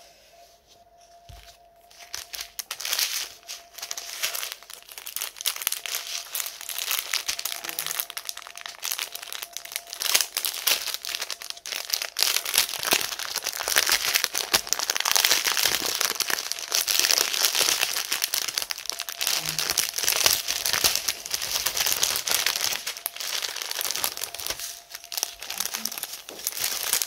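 Small clear plastic bags of diamond-painting rhinestones crinkling as they are handled and opened. The crinkling is nearly absent at first, starts about two seconds in and runs busily, loudest around the middle.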